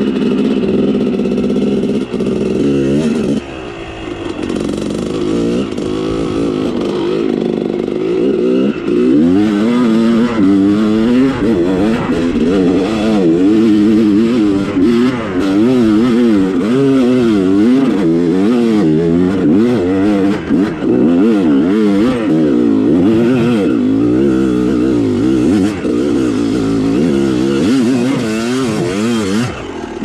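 Dirt bike engine running under way. It is fairly steady for the first few seconds, dips briefly, then revs up and down quickly and repeatedly as the throttle is worked on and off.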